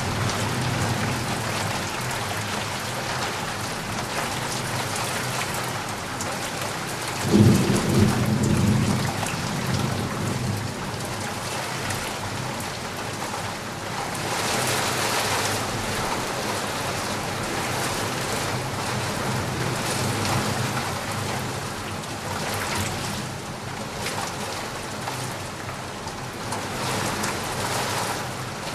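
Steady rain falling, with a short clap of thunder about seven seconds in that rumbles away over a couple of seconds.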